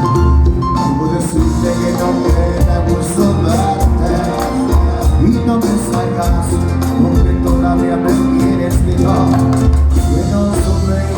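Cuarteto band playing live: loud Latin dance music with a steady pulsing bass beat, keyboard and percussion.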